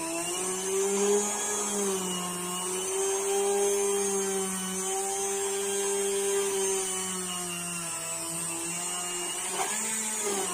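Electric hand (stick) blender running submerged in milk and chopped banana, blending a banana milkshake in a tall plastic beaker. Its motor gives a steady whine that wavers and dips slightly in pitch as the load shifts.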